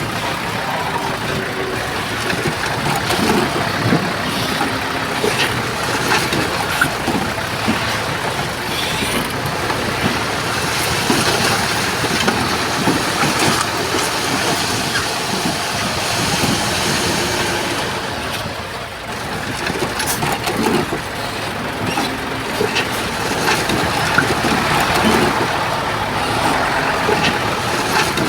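A Komatsu bulldozer working: its diesel engine runs steadily under load, with frequent short clanks and rattles. The sound eases briefly about two-thirds of the way through, then picks up again.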